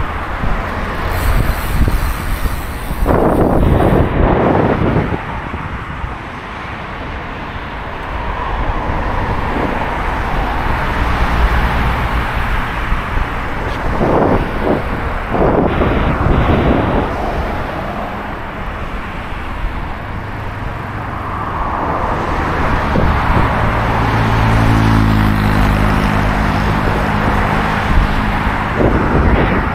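Road traffic noise: a steady rumble of cars on the road, with a vehicle engine's hum standing out for a few seconds near the end.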